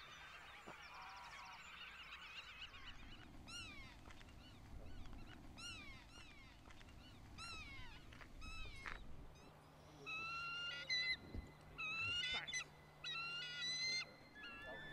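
Birds calling: a dense chorus of many birds at first, then separate calls about once a second, and louder, bunched calls in the last few seconds.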